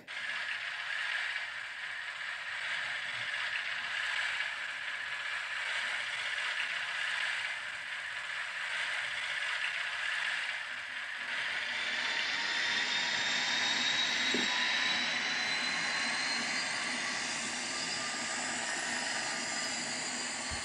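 Recorded Class 56 diesel engine sound starting up, played through the small speaker of an HM7000 sound decoder in a model locomotive. For the first eleven seconds or so it churns, swelling every second or two. It then settles into steady running with a faint whine that rises slowly.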